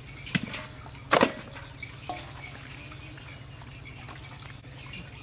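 Raw goat carcass pieces dropped into a large aluminium basin: a loud wet slap with a short metallic ring about a second in, with lighter knocks just before it and about two seconds in. A steady low hum runs underneath.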